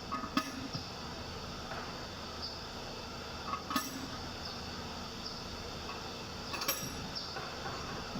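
Three sharp metallic clinks, a few seconds apart, over a steady low hum, with faint short high chirps in between.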